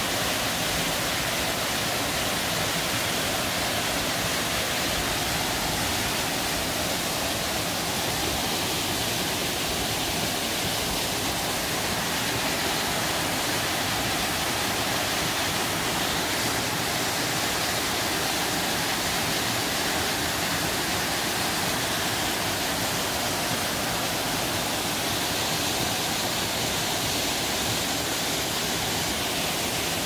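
Waterfall cascading down steep rock slabs: a steady, unbroken rush of falling water.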